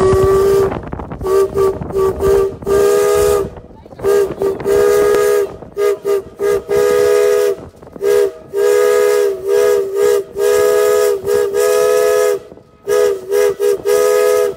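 A boat's horn blown over and over in a lively pattern of short toots and longer blasts, each at the same two-note pitch, with short breaks between runs.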